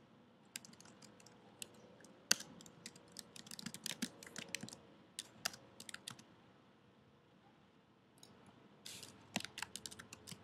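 Typing on a computer keyboard: faint, irregular key clicks, then a pause of about two seconds, then another quick run of keystrokes near the end.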